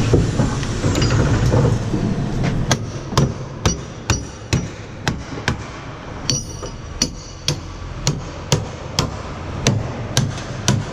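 Hammer driving nails into timber formwork boards: steady blows about two a second, starting a couple of seconds in, some with a short metallic ring.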